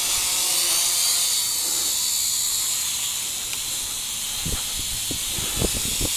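Small toy quadcopter's propellers whirring high-pitched at full throttle as it struggles against the wind, the pitch wavering slightly, with a few low thumps near the end.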